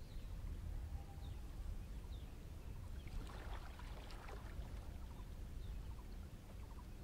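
Riverside outdoor ambience: wind rumbling low on the microphone, with a bird's short high chirps now and then and a brief crackle of clicks about three seconds in.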